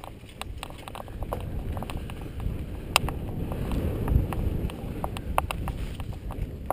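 Mountain bike rolling down a rocky dirt trail: a low rumble of tyres on the ground, with frequent sharp, irregular clatters and knocks as the bike rattles over stones and bumps, loudest about three and four seconds in.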